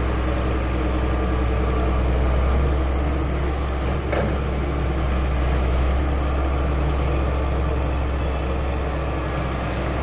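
Wheeled hydraulic excavator's diesel engine running steadily at working speed as the boom and bucket move, with a brief knock about four seconds in.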